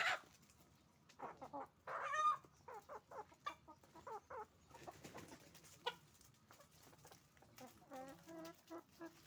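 Chickens in a flock clucking and calling in short, overlapping calls, with one louder call about two seconds in and a quick run of repeated clucks near the end.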